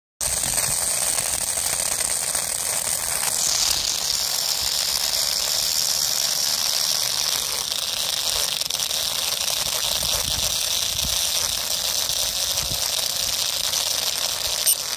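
Small DC motor spinning a plastic drill bit as it bores into dry sand: a steady high whine with a gritty rattle, the whine dropping in pitch about three and a half seconds in.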